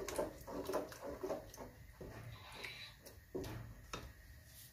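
Wooden spatula stirring and scraping beef keema as it fries in a pot. A quick run of scrapes comes first, then a few slower single strokes.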